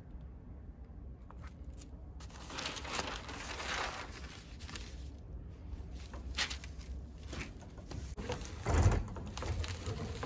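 Large sheets of paper being handled and laid over a printing plate on an etching press bed, rustling, with a few light taps and a dull thump near the end.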